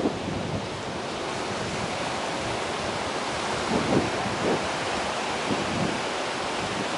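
Pacific surf breaking and washing over a rocky shore: a steady rush of water noise that swells briefly louder about four seconds in.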